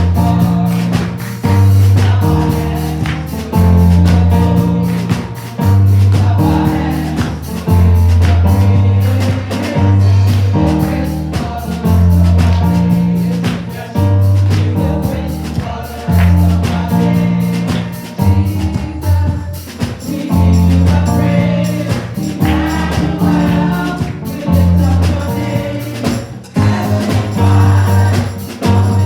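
Gospel praise music: a choir or group of singers over a band with a heavy repeating bass line and percussion that includes tambourine.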